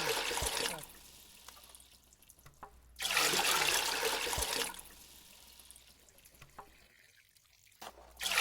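Water gushing or pouring in loud spells of a second or two, twice, with quieter trickling and small knocks between.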